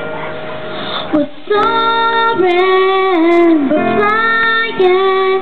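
A young girl singing a pop ballad into a microphone over an instrumental backing track. The backing music plays alone at first, then about a second and a half in she comes in with long held notes that slide between pitches.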